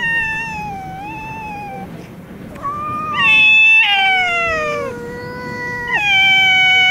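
Two tomcats caterwauling in a standoff before a fight: long, wavering yowls that slide up and down in pitch, one following another, loudest about three to four seconds in and again near the end.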